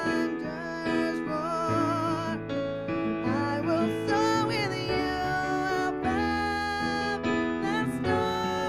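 A woman singing a slow worship song with held, wavering notes over sustained chords on a digital piano.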